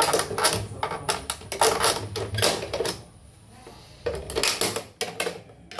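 Screwdriver working on the screws and metal parts of a portable embroidery machine's head: bursts of metallic clicking and scraping, with a short lull about halfway through.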